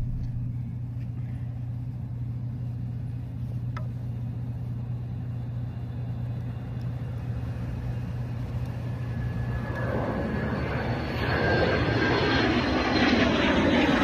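A steady low hum, then from about ten seconds in the engine of a fixed-wing airplane flying overhead, growing steadily louder as it approaches.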